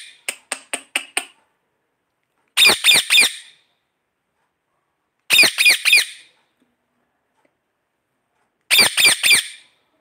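Indian ringneck parakeet squawking: three loud bursts of three harsh screeches each, about three seconds apart, after a quick run of shorter, quieter calls at the start.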